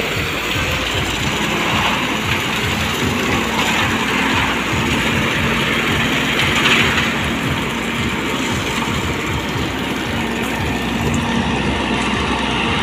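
Engine of an Ajax Argo 2500 self-loading concrete mixer running steadily while the mixer discharges concrete down its chute.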